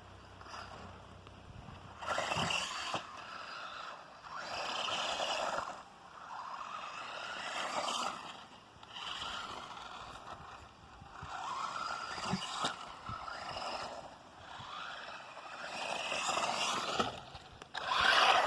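Redcat Volcano 18, a small electric RC monster truck, driven in repeated bursts: its motor whines up and down while the tyres scrape and scrabble over the ground. The loudest burst comes near the end.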